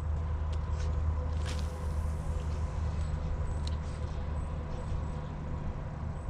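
Steady low mechanical hum with a faint constant whine over it, and a few faint ticks.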